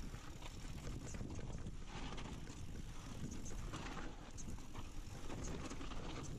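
Mountain bike riding fast down a rocky gravel trail: tyres crunching over loose stones and the bike clattering over the bumps, with a steady rush of wind over the microphone.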